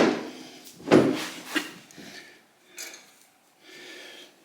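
Two sharp knocks about a second apart, then a lighter click and quieter rubbing, from motorcycle parts being handled during reassembly.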